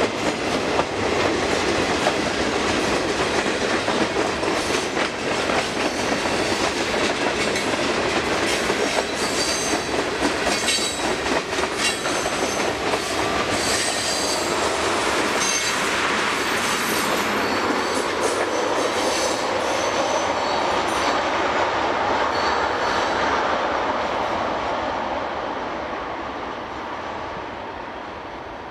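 Freight cars rolling past on steel rails: a steady rumble with rapid clicking and clattering of wheels over the track, and brief high-pitched wheel squeals. The sound fades away over the last few seconds as the end of the train passes and recedes.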